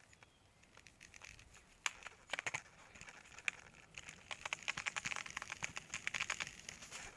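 Dry leaves and twigs crackling and snapping on an old paved trail as someone travels over them: quick, irregular ticks, sparse at first and much denser from about four seconds in.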